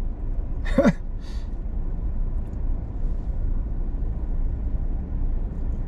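Steady low hum inside the cabin of a car stopped in traffic, its engine idling. A short voice sound breaks in about a second in.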